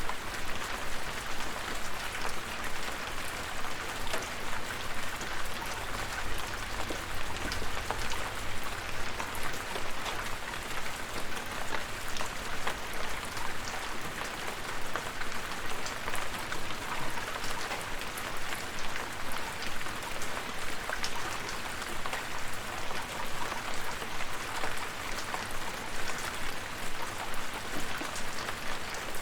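Steady rain, a continuous hiss with many individual drops ticking close by.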